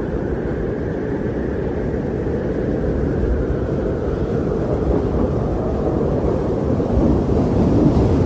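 Wind blowing steadily, a dense low rush of air with no breaks, swelling slightly near the end.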